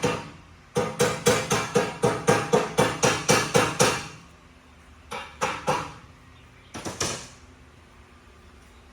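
Hammer striking steel in a quick steady rhythm, about four ringing blows a second, then after a pause a group of three blows and a final pair.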